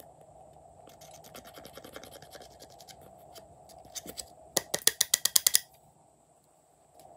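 Small metal spatula scratching eyeshadow powder out of the pans of a plastic makeup palette: a run of quick light scrapes, then about a second of fast, loud clicking strokes near the middle.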